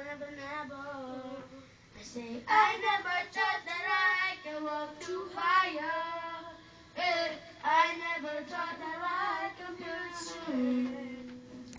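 Young boys singing into handheld microphones in phrases, ending with a long held note near the end.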